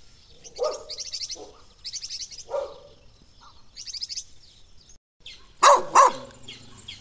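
Maritaca parrots squawking in three rapid chattering bursts over the first four seconds, then a dog barking twice, loud and close, about five and a half seconds in.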